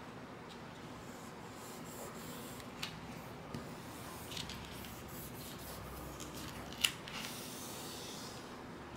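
Self-adhesive vinyl sheet being folded and rubbed down over a board's edge by hand: faint rustling and rubbing with a few small clicks, and one sharper click about seven seconds in.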